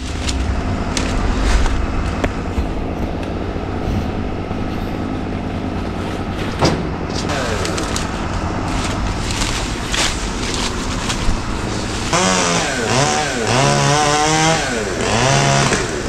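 An engine running steadily, with a few sharp knocks. About twelve seconds in a chainsaw starts, revving up and down in quick swoops.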